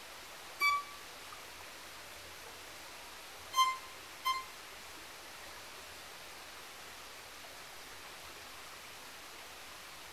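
Violin playing short, high bowed notes that imitate the call of a pygmy wren-babbler: one note under a second in, then two more less than a second apart around the middle, over a steady soft hiss.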